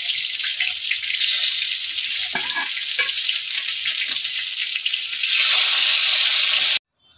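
Fish pieces sizzling steadily in hot mustard oil in a wok, with a few light knocks and scrapes of a metal spatula as the pieces are lifted out. The sizzle cuts off suddenly near the end.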